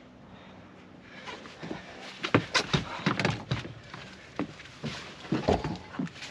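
Uneven thumps and knocks of someone clambering across a sailboat's deck and stepping down into the cockpit, starting about a second in.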